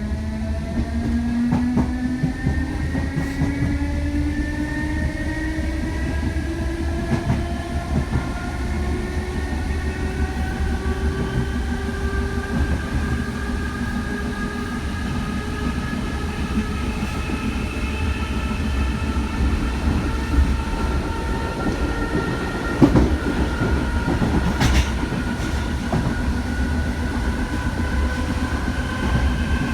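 DART electric train accelerating: its traction motors whine in several tones that climb slowly and steadily in pitch over the low running rumble, with a few sharp knocks along the way.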